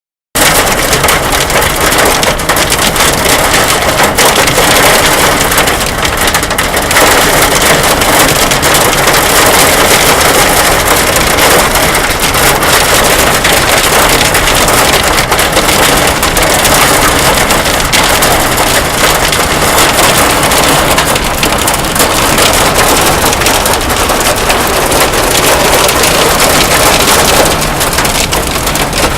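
Hailstones pelting down, a loud, dense, steady clatter of countless small impacts.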